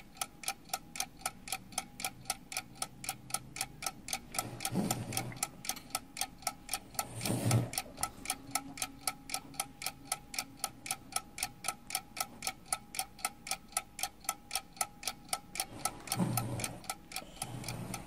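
Clock ticking sound effect, an even run of sharp ticks at about three a second, marking time passing while the iron heats the rhinestone letter. A few low thuds come in under the ticking.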